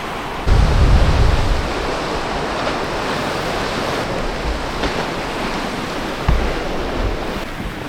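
Sea surf washing against the rocky shore, a steady rushing noise. Wind buffets the microphone in a low rumbling gust about half a second in and again briefly near six seconds.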